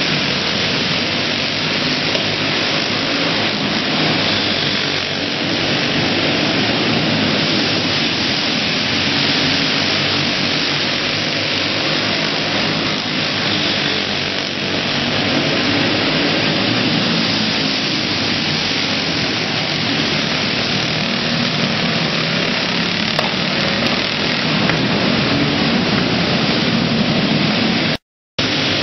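Several racing go-kart engines running hard together in a large indoor hall, a loud continuous din that swells and eases a little as karts pass. The sound cuts out for a moment near the end.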